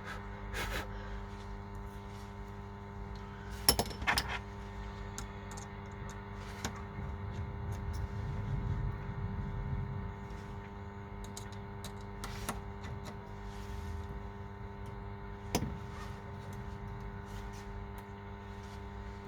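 Scattered small clicks and taps of tools and phone parts being handled during an iPhone screen replacement, the sharpest about four seconds in and again near the end, over a steady electrical hum.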